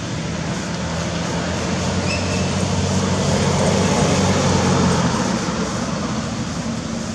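A motor vehicle passing: a low engine hum under a rush of noise that grows louder, peaks about four to five seconds in, then fades.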